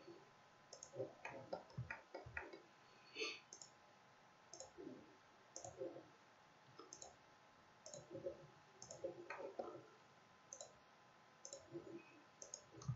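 A dozen or so faint, irregularly spaced computer mouse clicks.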